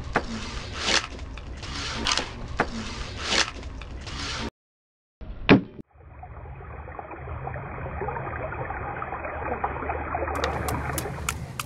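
Knife strokes on a fish being skinned, sharp strikes about once a second. The sound then cuts out briefly, gives a single loud click, and goes over to a steady muffled noise.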